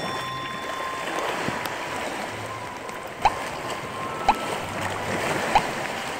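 Sea washing and surging against shore rocks, with wind on the microphone, as a steady rushing noise. Three short sharp chirps stand out in the second half, about a second apart.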